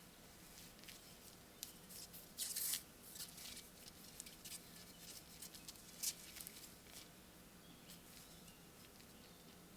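Faint, irregular small scratching and tapping handling noises, with a louder rustling scrape about two and a half seconds in and a sharp tick about six seconds in.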